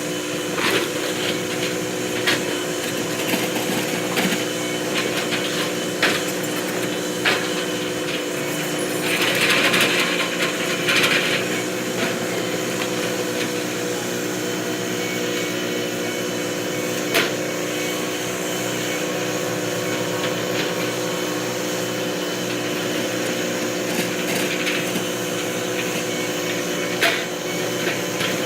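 Construction machinery's engine running steadily, with scattered sharp knocks and a brief scraping burst about ten seconds in.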